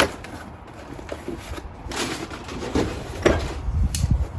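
A cardboard parts box being handled and opened: scattered rustles and knocks, heaviest near the end.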